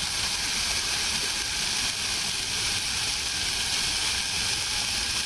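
Bacon frying in a pan on a portable gas stove: a steady, even sizzling hiss.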